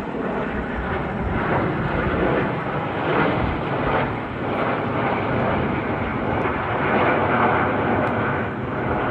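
Nine BAE Hawk T1 jets of the Red Arrows flying overhead in close formation: the steady rushing noise of their turbofan engines, swelling and easing a little in loudness.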